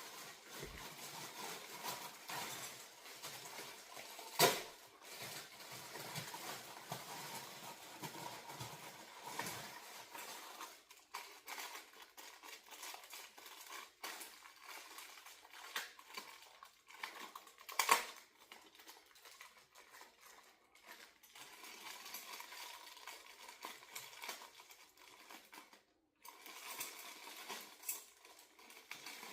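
Unpacking a vinyl mini blind set by hand: packaging rustling and small metal and plastic parts clinking, with two louder clacks, one about four seconds in and another past the middle.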